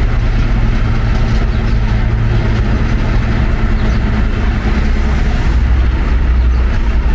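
Truck engine idling steadily, a continuous low hum.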